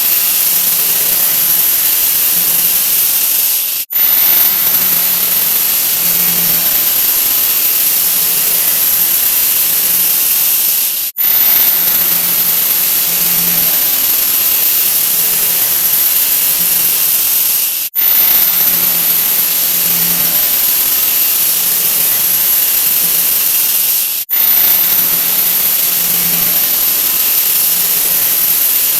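A 'wha wha' sound effect sped up so far that it has become a steady, loud hiss, strongest in the highest pitches and with no tune left. It breaks off for an instant four times, at about 4, 11, 18 and 24 seconds in, between repeats.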